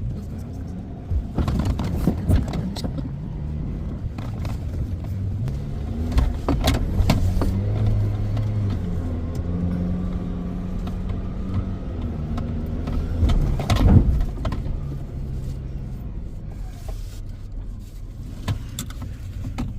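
Off-road vehicle engine running and rising and falling in revs while driving over soft sand, with several knocks and thumps; the loudest is about 14 seconds in.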